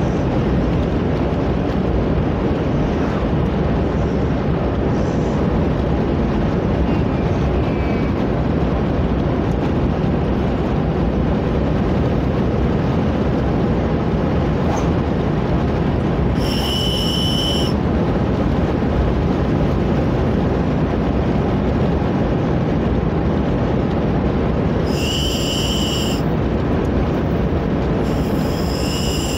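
Steady road and engine noise inside a moving car. Over it come three short, shrill whistle blasts from a candy whistle: one about halfway through, then two near the end.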